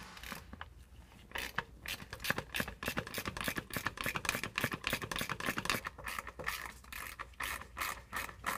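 Ratcheting wrench clicking in quick, uneven strokes as it backs out a 10 mm bolt, starting about a second in.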